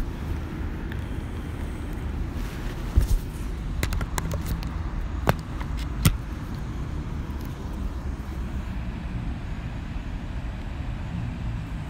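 Steady low outdoor rumble, with several sharp clicks between about three and six seconds in.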